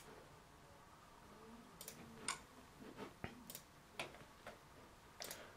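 Faint, irregular clicks of a computer mouse, several of them starting about two seconds in, over near silence.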